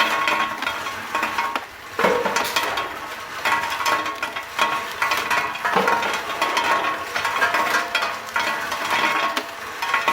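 Ginkgo nuts clattering continuously through a sorting machine, a dense rattle that dips briefly about two seconds in and again near six seconds.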